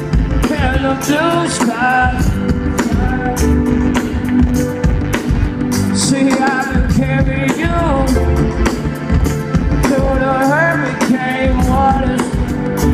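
Live rock band playing amplified through the stage sound system, a singer's voice over guitar and drums with a steady beat, heard from within the crowd.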